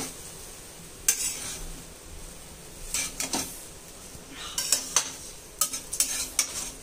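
Egg chicken fried rice being stirred in a pan to mix in soy sauce and vinegar: a utensil makes irregular scrapes and clinks against the pan, with a faint sizzle underneath.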